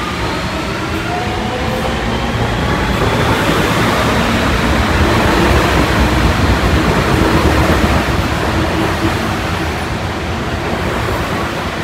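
New York City subway train rumbling past, its motors whining in rising pitch as it speeds up. The rumble swells to its loudest about midway, then eases off.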